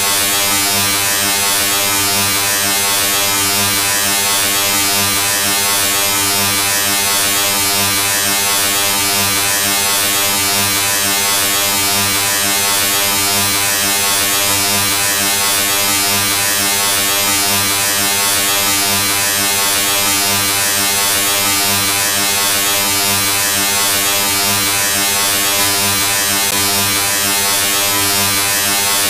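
A steady, unchanging electric buzz: a low hum with many evenly spaced overtones and a bright hiss on top, like a shaver-type drone, holding the same loud level without a break.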